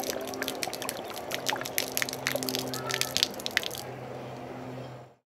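Water pouring from an upturned plastic bottle and splattering onto pavement in many small splashes, over a steady low hum. The splashing stops a little before four seconds in and the sound fades out soon after.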